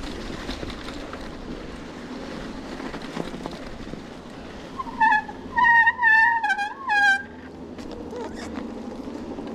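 A dog whining, four high wavering whines in quick succession about halfway through, over a steady rumble of movement along the trail.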